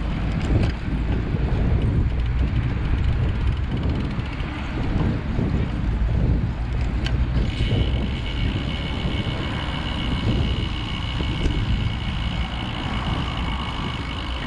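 Wind buffeting the microphone during a ride, a steady low rumble. About halfway through a steady high-pitched whine of two tones joins in and keeps on.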